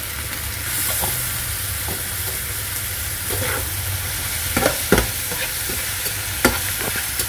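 Sliced pork sizzling in a nonstick frying pan, stirred with a spatula that scrapes and knocks against the pan several times in the second half.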